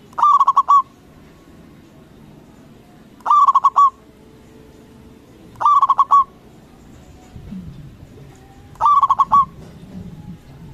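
Zebra dove (perkutut) cooing: four short coos spaced two to three seconds apart, each a quick stuttering run of clipped notes.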